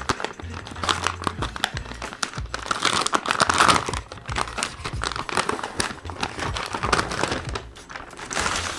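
Packaging crinkling and rustling as a tablet back cover is unwrapped by hand: a dense run of irregular crackles throughout.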